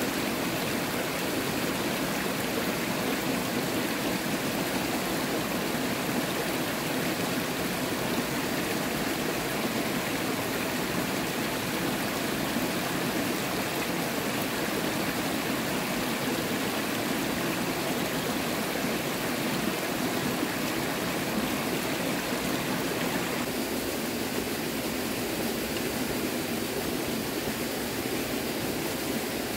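Steady rushing of flowing water, like a stream. Its deeper part thins out near the end.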